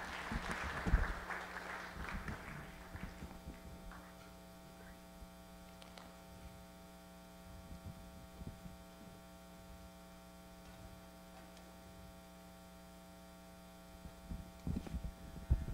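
Steady electrical mains hum from a sound system. Rustling and a few knocks come in the first few seconds, and faint knocks follow now and then.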